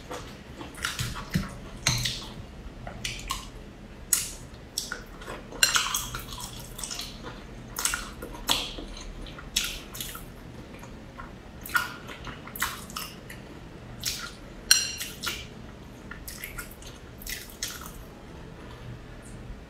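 A person eating a spicy noodle stew with chopsticks: irregular wet chewing and lip smacks, a few a second, with light clicks of chopsticks against the bowl.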